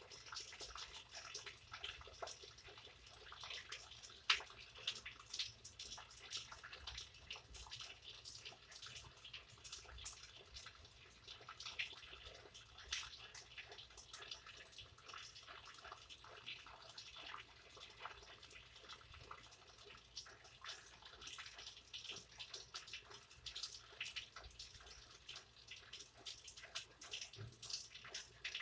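Rain falling, heard faintly: a soft hiss with many irregular ticks and drips of drops landing, one sharper drop about four seconds in.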